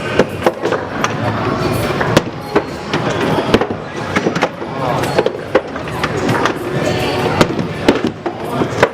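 Skee-ball balls knocking and clacking irregularly against the lane and scoring rings, over a busy arcade din with background music.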